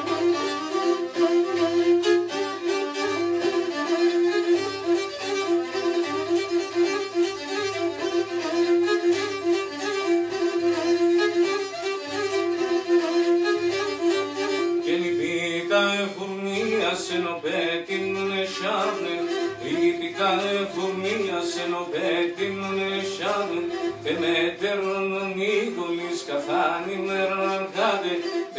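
Pontic lyra (kemenche) played solo: a bowed instrumental passage with a steady drone note under a quick, ornamented melody.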